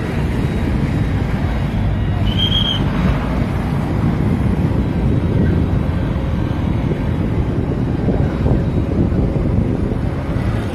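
Wind buffeting the microphone as a steady low rumble, with one brief high tone about two seconds in.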